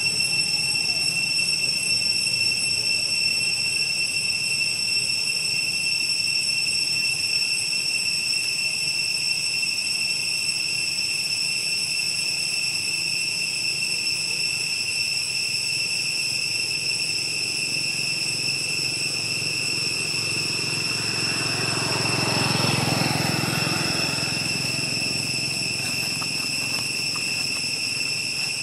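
Steady, high-pitched insect drone at several fixed pitches over a low rumble; about three quarters of the way through, a vehicle passes along the road, swelling and fading over a few seconds.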